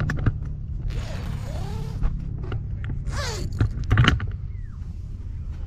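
Zipper on a mesh insect net being pulled open in one long stroke about a second in, then the net fabric rustling, with a few sharp clicks near the four-second mark. A steady low hum runs underneath.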